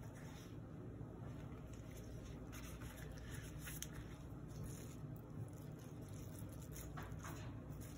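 Faint rubbing and soft squishing of gloved hands flattening a softened cabbage leaf on a wooden board and pressing stuffing onto it, over a steady low hum.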